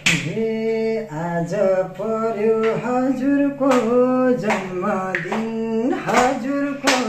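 A man singing a Nepali folk song unaccompanied, in long held, wavering notes, with a few hand claps from listeners.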